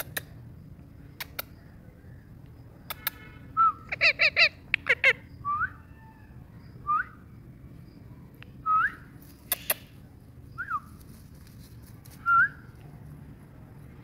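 Indian ringneck parakeet calling: a quick run of four short calls about four seconds in, then short rising whistles every couple of seconds, with a few sharp clicks in between.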